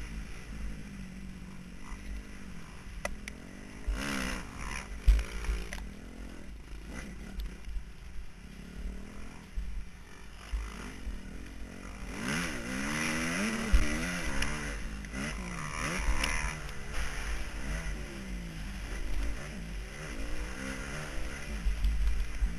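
Motocross bike engine revving up and down as it is ridden round a dirt track, picked up by an onboard camera with a heavy low rumble on the microphone. A few sharp knocks come through, the loudest about five seconds in and just before the middle.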